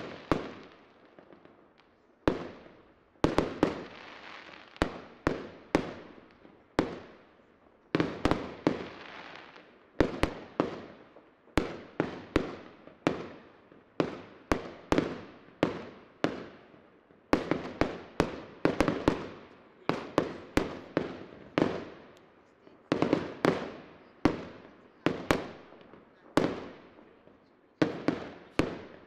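Aerial firework shells bursting in rapid clusters, a volley of sharp bangs every second or two, each bang trailed by echo.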